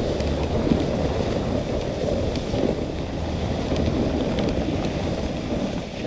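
Dogsled runners gliding and scraping steadily over a packed snow trail while the dog team pulls, with wind on the microphone and a few faint clicks from the sled.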